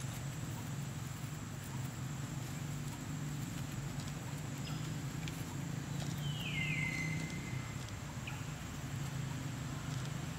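Outdoor ambience: a steady low hum with a thin, steady high-pitched tone over it. About six seconds in, a single call slides down in pitch and then holds for about a second.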